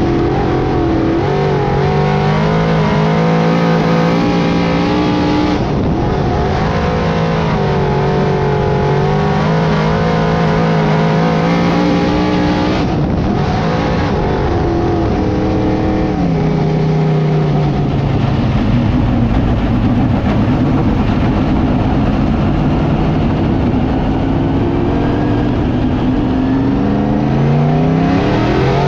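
Small-block V8 of a DIRTcar 358 dirt modified, heard from inside the cockpit, running at varying throttle with its pitch rising and falling. Near the end it climbs steeply as the engine accelerates hard.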